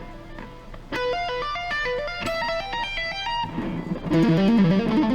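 Guitar playing a rapid run of single notes in a symmetrical, chaotic-sounding lick. After a quiet first second the notes climb quickly, then from about three and a half seconds in a louder, lower run zigzags up and down.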